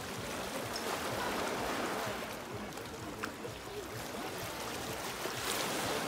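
Small Black Sea waves breaking on a pebble beach, a steady wash of surf over the stones. It swells a little louder about a second in and again near the end as a wave breaks.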